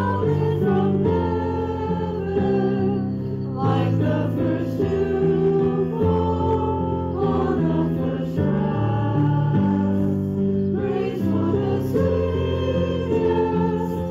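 Congregation singing a hymn together with instrumental accompaniment, in long held notes.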